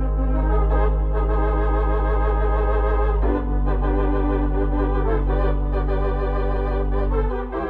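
Organ music: sustained chords with a wavering tremolo over a held low bass note, moving to a new chord about three seconds in and changing again near the end.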